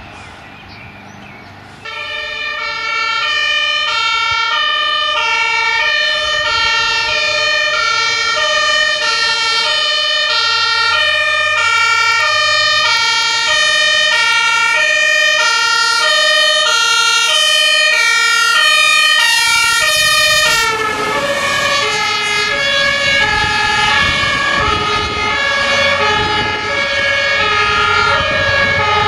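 A German fire engine's two-tone siren (Martinshorn) sounding, alternating steadily between two notes. It starts suddenly about two seconds in. About two-thirds of the way through, the truck passes: the siren's pitch drops and the engine and tyre noise come up underneath.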